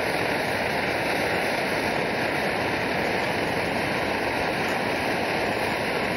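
Steady rushing noise of a liquid-fuel camp stove burning with a blue flame, blended with a river running close by.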